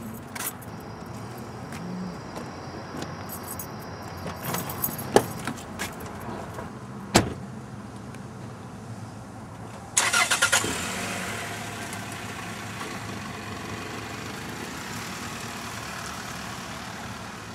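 Car door clicks and a sharp door slam about seven seconds in, then the car's engine cranks and catches about ten seconds in and runs steadily as the car pulls away.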